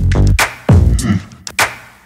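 Background music with a heavy electronic beat: deep bass drum hits about every half second or so, with sharp high percussion between them.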